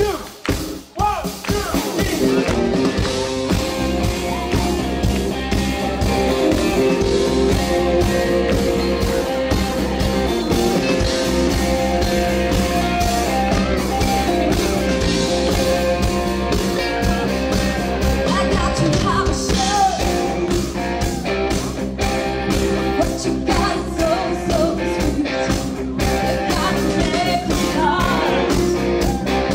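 Live rock band playing, with a woman singing over electric guitar, bass and drums. A few sharp drum hits open it, and the full band comes in about two seconds in.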